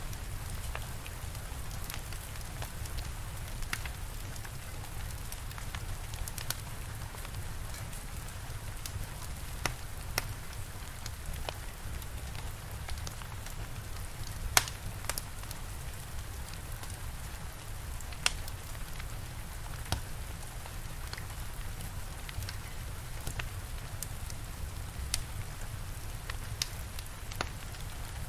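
Steady rain with a wood fire crackling, sharp pops scattered irregularly throughout, the loudest about halfway. A low steady rumble runs underneath.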